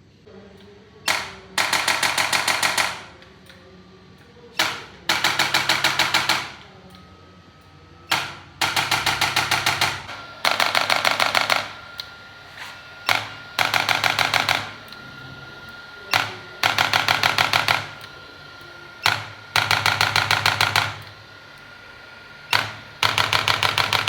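Mechanical chiropractic adjusting instrument firing rapid series of clicking thrusts. Each time there is a single click, then a burst of about ten quick clicks at about seven a second, lasting one to two seconds. This repeats about seven times.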